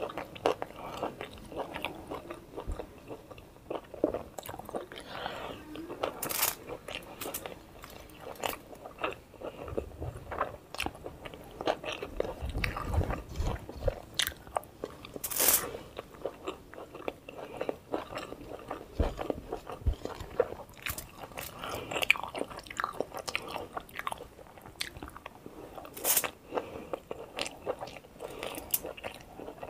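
Close-up eating of momos (dumplings): biting and chewing with irregular sharp mouth clicks and smacks throughout.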